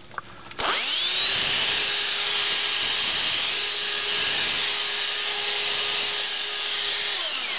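Vintage Black & Decker Dustbuster hand vacuum (Cat. No. 9330), rewired to run on 12 volts, switched on with a click. Its motor spins up in a rising whine and runs steadily for about six seconds. Near the end it winds down in falling pitch: the vacuum draws more than 12 amps, so the jump-start box's overload cuts the power.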